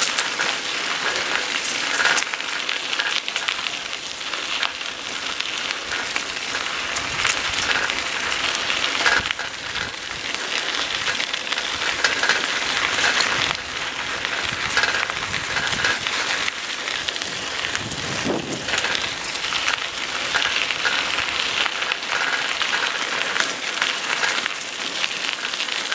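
Bicycle tyres rolling over a gravel trail, giving a steady crackling hiss with scattered small clicks and rattles.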